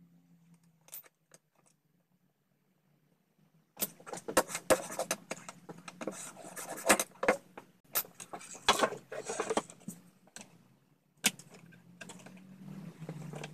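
Metal bench plane shaving the wooden runner of a table saw sled in a run of quick, irregular strokes, starting about four seconds in and stopping around ten seconds. The runner is being planed down because it has swollen with humidity and no longer slides freely. Near the end come softer scraping and clicks.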